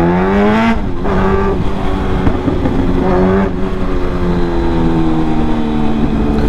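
Suzuki GSX-R1000 superbike's inline-four engine accelerating hard. Its pitch climbs, drops sharply at a gear change just under a second in, and climbs again. It drops again about halfway through, then runs on at a slowly falling pitch as the throttle eases.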